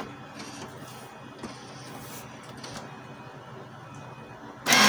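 Canon MP287 inkjet printer switched on: a click of the power button, then the printer's motors and carriage running quietly through its start-up routine, the routine that here ends in error P03. A brief loud tone comes in just before the end.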